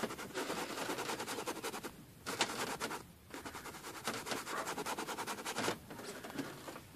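Bristles of a filbert paintbrush scrubbing on canvas in rapid, short, scratchy strokes, with brief pauses about two and three seconds in, dying down near six seconds in.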